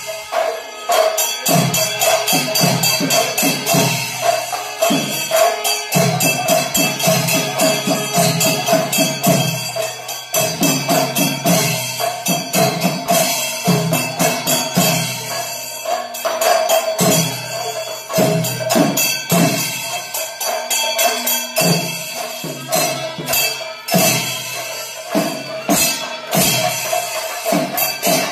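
Kerala temple percussion ensemble playing: drums struck in a fast, dense rhythm with small hand cymbals clashing, over a steady held wind note.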